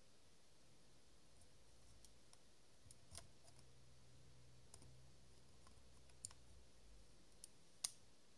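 Scattered plastic-on-metal clicks and light scrapes of a 3D-printed macro extension ring being handled, twisted and fitted onto a Canon EOS camera's bayonet lens mount, with a few sharp clicks, the sharpest near the end.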